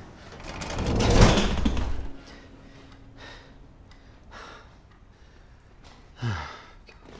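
A swelling whoosh with a deep rumble builds to a peak about a second in and cuts off: the film's sound effect for the recliner's time jump as its lever is pulled. Soft breaths follow, with a short breathy vocal sound falling in pitch near the end.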